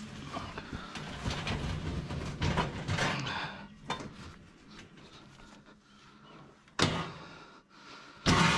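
Clattering and handling noises, then a vehicle door shutting with a sharp knock about seven seconds in, and another loud knock near the end.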